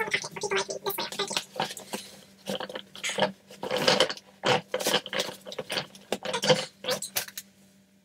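A Henry vacuum cleaner's dust bag crinkling and rustling as it is handled, folded and pushed into the vacuum's plastic tub, in irregular bursts that stop about seven seconds in.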